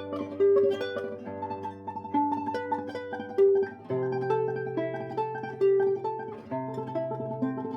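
Solo classical guitar playing a tremolo passage: a melody of fast repeated plucked notes over a moving bass line.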